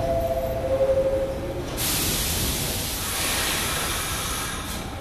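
R46 subway car standing at the platform: a two-note descending chime for about a second and a half, then, about two seconds in, a sudden steady hiss of released air over a low rumble.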